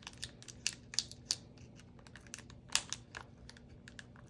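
Packing tape and plastic wrapping on a heavily taped package crackling and crinkling in irregular sharp snaps as it is worked open by hand.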